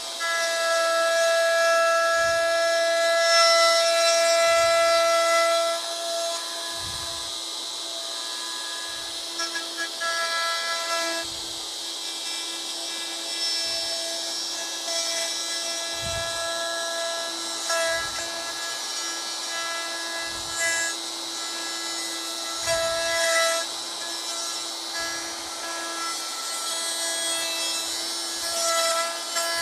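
DeWalt router running steadily with its bit cutting wood while the J-slot of a yarn bowl is routed in a jig. It is louder for about the first six seconds, then runs on a little quieter, with a few short low knocks.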